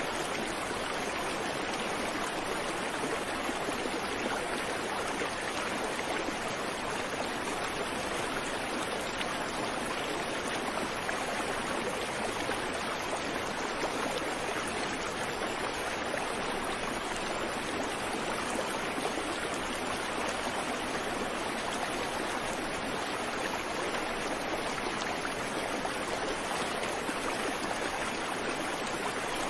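Creek water flowing over rocks, a steady rushing and gurgling with no birdsong.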